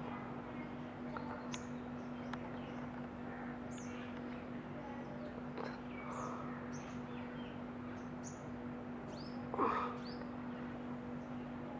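Small birds chirping, with many short high chirps scattered throughout over a steady low hum. About nine and a half seconds in comes one louder, lower call.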